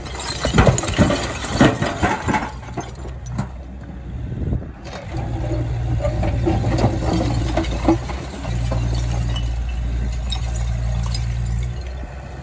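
Stone rubble tipped from an excavator bucket clattering into a steel truck body, with several loud crashing impacts in the first two seconds. After that the mini excavator's diesel engine runs steadily under hydraulic load while the bucket digs, with small scrapes and clinks of stone.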